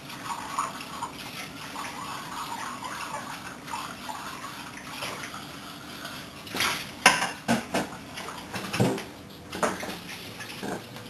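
Washing up at a sink: tap water running, with dishes knocking and clinking. A run of sharp clatters of crockery comes between about six and ten seconds in.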